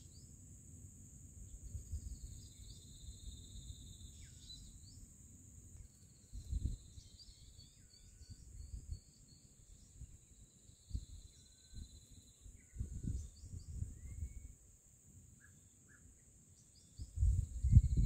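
Shrike chicks giving thin, high begging chirps in the nest over a steady high-pitched insect drone. Irregular low rumbles come and go, loudest near the end.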